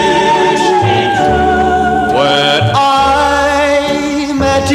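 A vocal ballad played from a record wet with clean water, which quiets the surface crackle. Backing voices hold long sustained harmonies over a bass line between the sung lines, with a change of chord about two seconds in.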